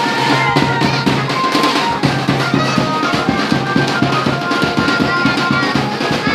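Loud festival music with fast, dense drumming under a held melody line.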